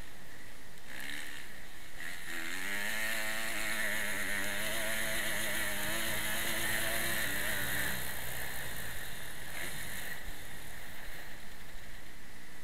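Motocross dirt bike engine revving up and holding high revs, with wind rushing over the helmet-camera microphone. The engine note climbs about two seconds in and drops away about eight seconds in.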